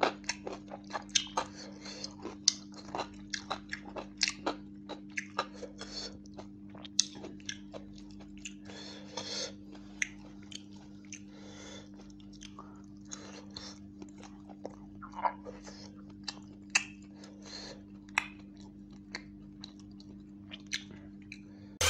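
Close-up chewing and biting of roast chicken and rice, with many short wet smacks and clicks. A steady low hum runs underneath.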